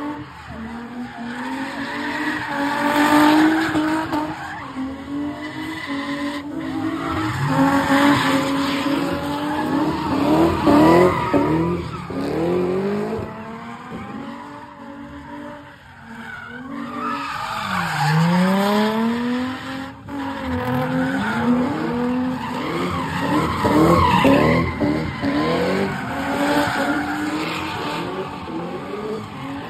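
Cars spinning donuts: engines revving up and down over and over, with tires skidding and squealing.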